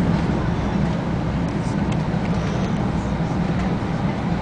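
Steady rumble of a shinkansen bullet train running at speed, heard inside the passenger carriage.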